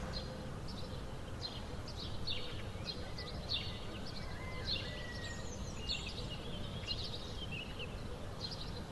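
Outdoor ambience: small birds chirping on and off over a steady low background rumble.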